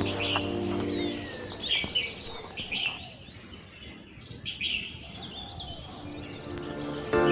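Small birds chirping and twittering in quick, high, short calls. Background music fades out about two seconds in and comes back near the end.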